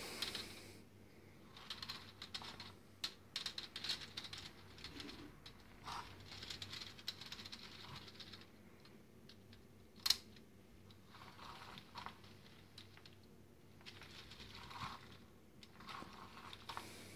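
Lego Technic plastic gears and drivetrain clicking and rattling in bursts as the chassis is rolled by hand, with a single sharper click about ten seconds in.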